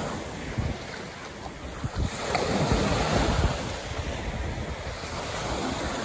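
Ocean surf breaking on a beach, with wind buffeting the microphone. The surf rises louder a couple of seconds in, then eases.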